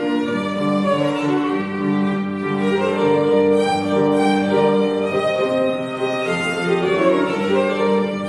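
Violin played with piano accompaniment: a bowed melody of held notes over the piano.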